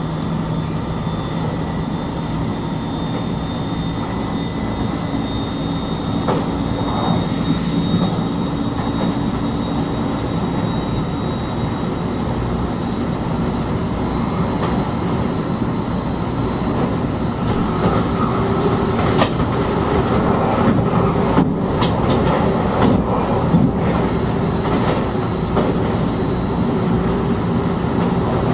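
Inside the driver's cab of a Dutch NS stopping train under way: a steady running rumble with a faint high whine, and a series of sharp clicks and knocks from the track in the later part, a little louder from about two thirds in.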